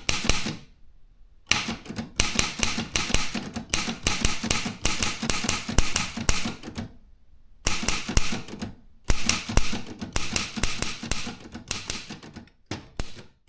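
Consul 232 manual typewriter being typed on, keys striking in quick runs with short pauses about a second in and around seven and nine seconds in, then a few separate strokes near the end.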